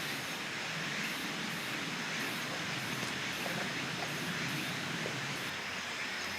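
Outdoor evening ambience: insects chirping high and faint, in an even pulse about twice a second, over a steady hiss.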